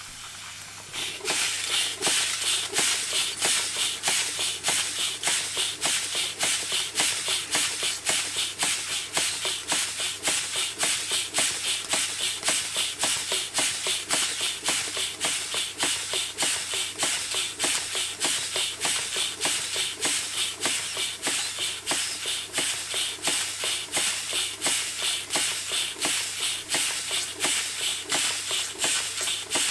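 Schoenner Lipsia toy steam engine running under steam, its exhaust chuffing in a quick, even beat with hiss. It picks up about a second in.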